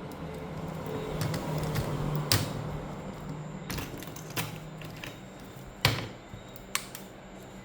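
Several sharp clicks and knocks of plastic and metal laptop parts being handled during a keyboard replacement, over a steady low hum; the loudest knock comes a little over two-thirds of the way through.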